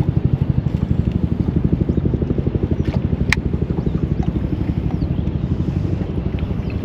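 A boat's outboard motor idling steadily, an even rapid pulse. A single sharp click about three seconds in.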